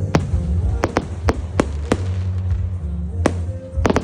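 Fireworks bursting overhead: a quick run of sharp bangs, about nine in four seconds, some in close pairs. Under them runs music with a heavy bass.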